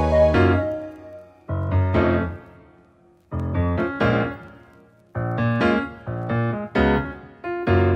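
Background piano music: slow chords struck one after another, each left to ring and fade, with short silences between them.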